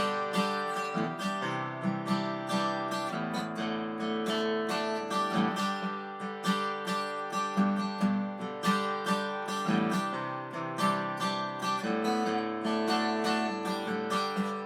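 Background music: strummed and plucked acoustic guitar with a steady rhythm.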